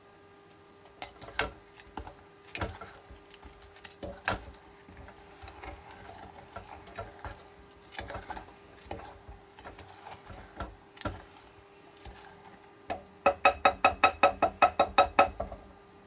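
A faint steady hum with scattered light clicks and taps, then near the end a rapid run of about a dozen sharp, pitched clicking beeps, about five a second.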